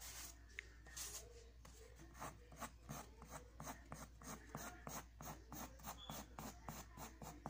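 Pencil scratching on lined notebook paper in quick repeated sketching strokes, about three a second, faint.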